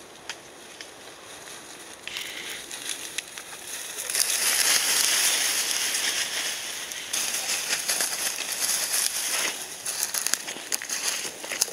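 Dry undergrowth and brush rustling and crackling underfoot as golden retrievers push through it, louder from about four seconds in.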